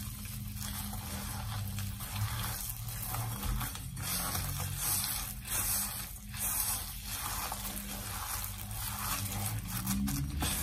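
A rubber-gloved hand kneading and squeezing cooked mashed mung beans with sugar in a bowl, making soft, wet squishing sounds that come and go with each squeeze. A steady low hum runs underneath.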